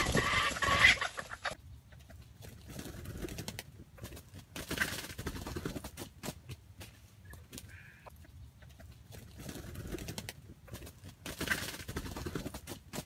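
A loud drawn-out animal call that cuts off abruptly about a second and a half in, then red junglefowl clucking softly and scratching and rustling in dry leaf litter, with busier bursts of rustling twice.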